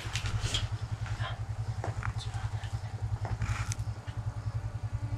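Four-wheeler (ATV) engine running nearby, a low, fast, steady throb, with a few faint clicks over it.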